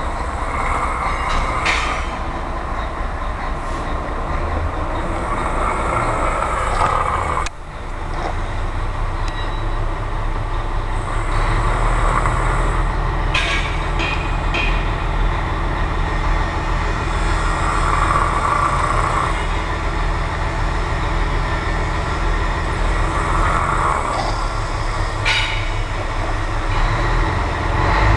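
A man snoring in his sleep, a long snore about every six seconds, over a steady low rumble.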